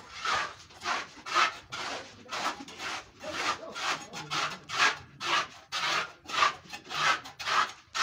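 Footsteps crunching on gritty, sandy ground at an even walking pace, about two scraping steps a second.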